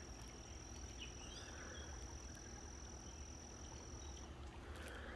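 A night insect's steady high trill on one unbroken pitch, stopping about four seconds in, with a few faint chirps and a low rumble underneath.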